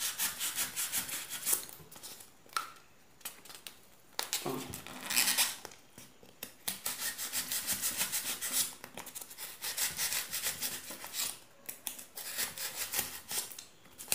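Utility knife blade sawing through a styrofoam ball in quick back-and-forth strokes, about four or five a second, in several runs with short pauses between.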